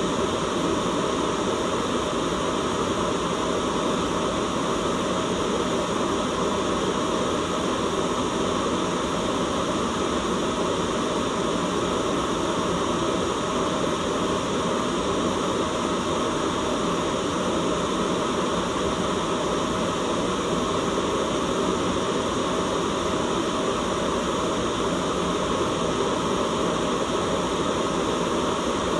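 Steady white noise: an even, unbroken hiss with a full low rumble beneath it.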